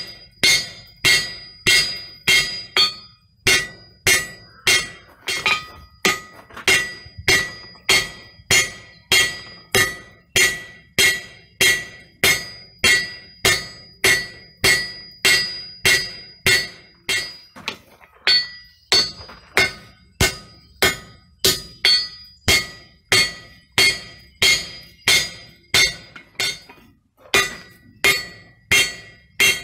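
Hand hammer forging a red-hot steel axe head on a length of steel rail used as an anvil: steady blows about two a second, each with a bright metallic ring, broken by a few short pauses.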